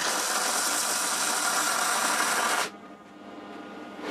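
MIG welding arc crackling and hissing as a short weld is laid on a steel box-section joint, cutting off about two and a half seconds in.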